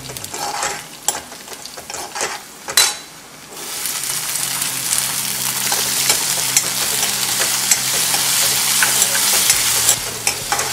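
Ginger, green chilli and crushed coriander-cumin frying in oil in a metal kadhai, with a metal spatula scraping and clicking against the pan. About three and a half seconds in, green peas go into the hot oil and the frying turns to a steady, dense sizzle.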